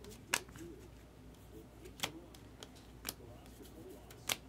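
A hand-held stack of Bowman Chrome trading cards being flipped through one card at a time: four sharp card snaps about a second apart, with a few lighter ticks between them, over faint background noise.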